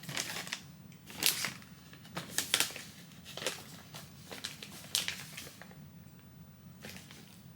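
Plastic snack packaging crinkling and clicking as it is handled, with a string of sharp crackles that thins out after about five seconds.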